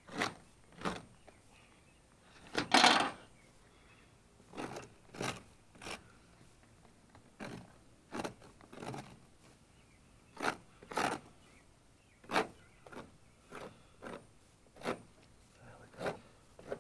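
Short scraping strokes, roughly one or two a second with the loudest about three seconds in, as a knife scrapes and cuts between a gar's hard scaly hide and its meat during skinning.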